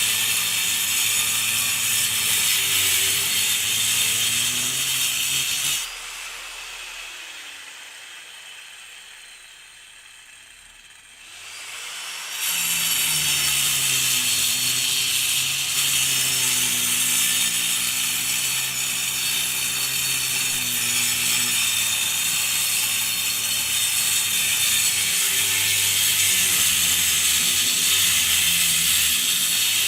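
Angle grinder with a cutting disc cutting through concrete: a steady, harsh, hissing grind with a wavering motor hum. About six seconds in the cut stops and the disc winds down with a falling tone. About six seconds later the grinder speeds up again and goes back to cutting steadily.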